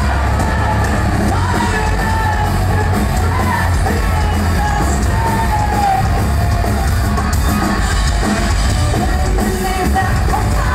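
Alternative rock band playing live at full volume: a heavy, steady low end of bass and drums under a sung lead vocal, heard from within the crowd.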